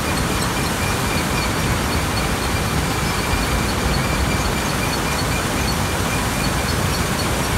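Yongwon YVS-2470 vibrating screen and its screening plant's conveyors running under load, a steady mechanical noise with a faint high whine and light ticking over it.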